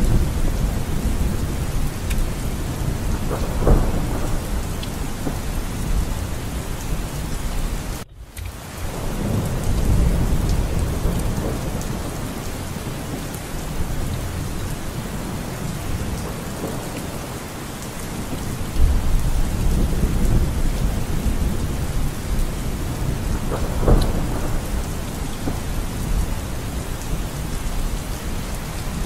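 Steady rain with low rumbles of thunder that swell and fade several times. The sound drops out for a moment about eight seconds in.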